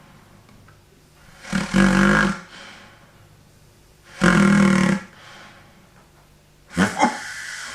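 Snore-like buzzing from a balloon-and-pipe airway model as air is forced through and the balloon, standing in for the soft palate and tongue, flutters. There are three loud snorts about two and a half seconds apart, with quieter airflow between them. The balloon is set further back to show the airway collapsing as in obstructive sleep apnea.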